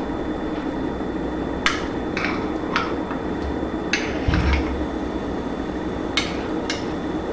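A spoon clinking against a measuring cup while thick cashew sour cream is scooped out. The sharp clicks come in small groups about half a second apart, and there is a dull low thump about four seconds in.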